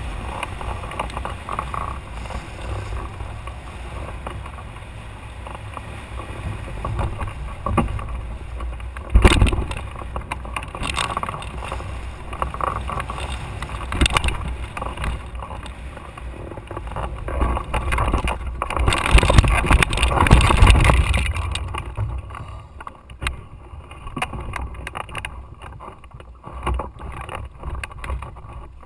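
Airflow buffeting the microphone of a camera mounted on a hang glider in flight: a steady rushing rumble with sharp gusts, loudest about two-thirds of the way through, then dropping off as the glider slows to land.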